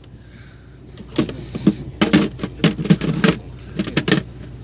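Steady low hum of a fishing boat's engine, with short bursts of indistinct voices and clatter on deck from about a second in.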